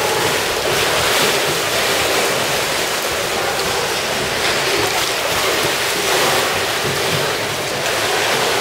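Pool water churning and splashing as sea lions swim fast laps through it: a steady rushing wash of water.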